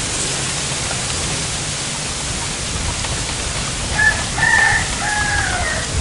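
A rooster crows once, about four seconds in, in three drawn-out segments ending in a falling note, over a steady outdoor background hiss.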